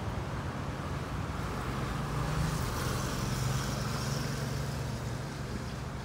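Road traffic at a queued junction: car and van engines running, with a low engine rumble that swells about two seconds in and eases off near the end.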